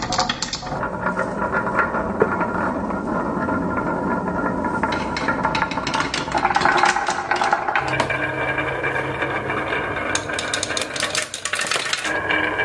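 Marbles rolling and clattering down a marble run's tracks: many quick clicks and knocks over a steady rolling hum.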